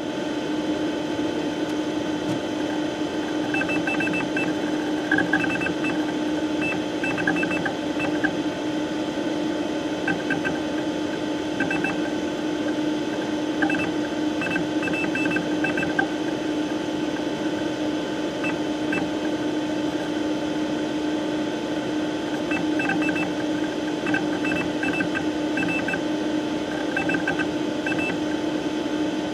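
Desktop computer tower running: a steady fan hum with one strong low tone, and short faint high chirps coming in little clusters every second or two.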